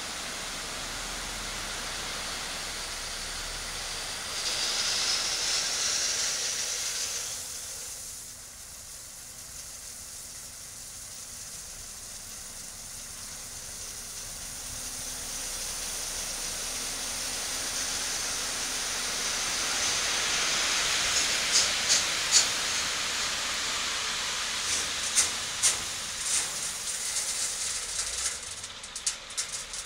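Gravel sliding out of a tipped half-pipe steel tipper body and pouring onto a pile: a steady hiss of running stones. It swells about four seconds in, eases a few seconds later, then builds again, with sharp clicks of single stones striking in the last third.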